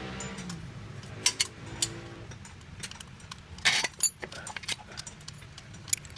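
Sparse metallic clinks and knocks from tools and parts being handled, with a short clatter a little past the middle.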